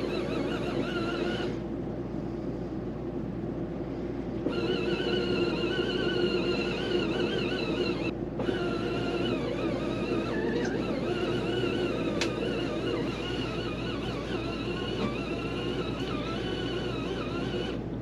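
East Doll folding washing machine agitating a load of laundry: a steady motor hum with a wavering high whine. The whine cuts out for about three seconds near the start and again briefly about eight seconds in, and there is a single sharp click about twelve seconds in.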